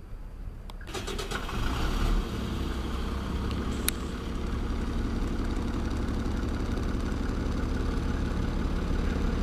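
Diesel engine of an Alexander Dennis Enviro400 double-decker bus on a Dennis Trident chassis starting about a second in. It catches suddenly, swells for about a second, then settles into a steady idle.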